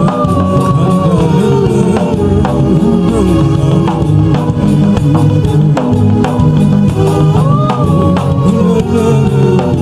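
Loud live gospel music played by a band with a drum kit and bass, with a melodic lead line that slides up and down, heard near the start and again toward the end.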